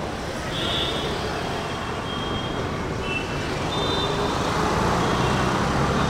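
Street traffic going by: a steady wash of engine and tyre noise that grows somewhat louder in the second half, with a few brief high-pitched tones.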